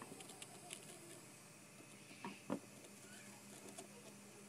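Faint taps and small scratchy ticks of a flux pen's felt tip dabbing along the legs of a surface-mount chip, with two sharper clicks close together about halfway through.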